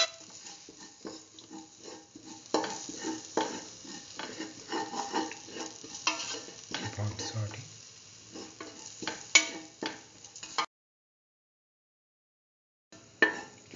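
A spatula stirs and scrapes sliced onions and curry leaves frying in oil in a steel pan: light sizzling, with irregular scrapes and taps of the spatula on the metal. The sound drops out completely for about two seconds near the end, then the stirring resumes.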